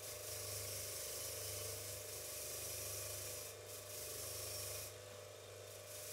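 Bench grinder running with a wire wheel, its bristles scrubbing rust off the threads of a steel screw-press screw: a steady, hissing scrub over the motor's hum. The scrubbing drops off briefly twice, the second time for about a second near five seconds in.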